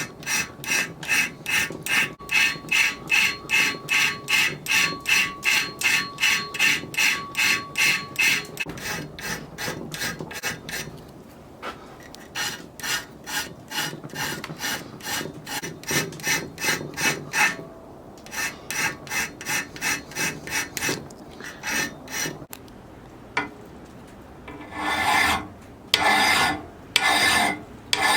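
Hand file sharpening the steel teeth of a homemade ice saw, rasping back and forth at about three strokes a second in runs with short pauses between teeth. A faint ring from the blade sounds under the first strokes.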